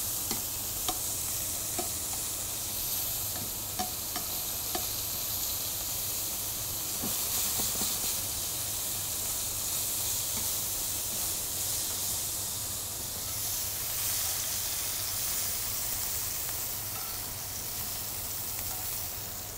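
Strips of beef striploin sizzling steadily as they are quickly seared in a hot frying pan, with a few faint clicks of the utensil against the pan as the meat is turned.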